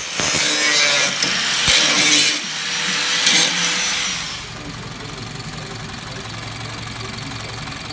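Angle grinder cutting steel bodywork, a harsh hiss with several surges that fades out about four seconds in; then the Austin Ten's four-cylinder engine idling steadily.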